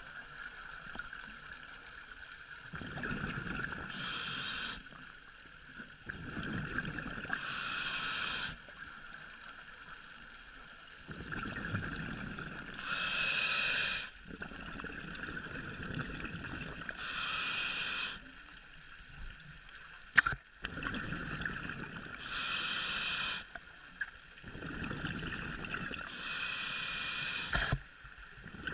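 A scuba diver breathing through a regulator underwater: a hiss of inhalation and a bubbling rush of exhaled air, alternating about every four to five seconds, with a faint steady whine behind.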